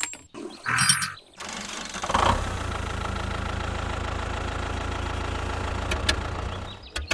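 A short clatter about a second in, then a steady, low engine rumble with a fast even beat from about two seconds in until it stops near the end, as the toy tractor drives off pulling its trolley.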